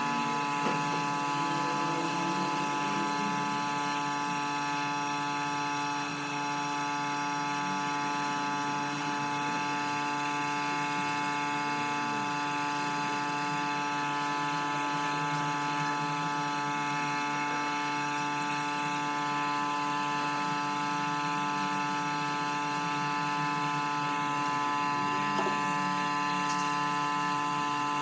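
A motor running steadily with an unchanging hum.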